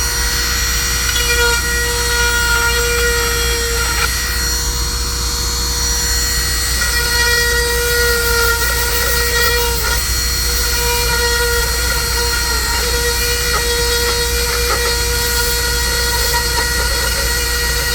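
Dremel rotary tool running at high speed, a steady whine whose pitch sags briefly now and then as the bit is pressed into the plastic to shape a welded polypropylene bumper tab.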